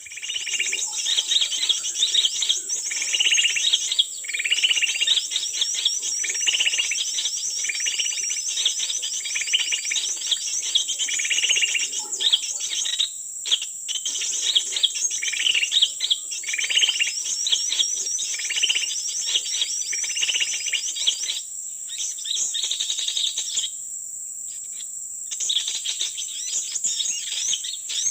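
Forest birds chirping, one call repeated about once a second, over a steady high-pitched insect drone. The chirping stops about three-quarters of the way through and the drone carries on.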